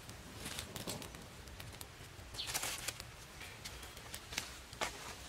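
Dry leaves, twigs and stones rustling and clicking as a small stick fire is built up between rocks, with a brief louder rush about halfway through.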